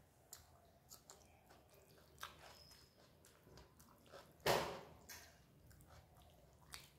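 Close-up chewing, with small wet clicks and squelches as fingers mix rice and lentil dal on a steel plate. One louder, sharper wet smack comes about four and a half seconds in.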